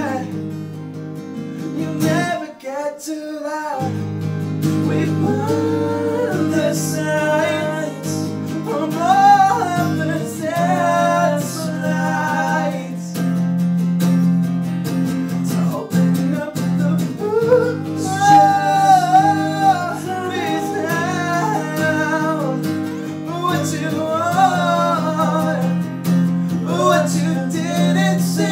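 Two acoustic guitars played together under a male lead vocal, a live acoustic rock song. The guitars drop out for about a second and a half near the start while the voice carries on, then come back in.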